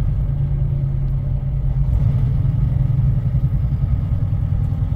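Grain truck's engine running steadily while driving, a low, even drone with road rumble, heard from inside the cab.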